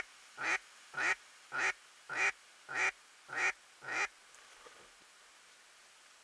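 A duck quacking: a run of about eight loud quacks, evenly spaced a little over half a second apart, stopping about four seconds in.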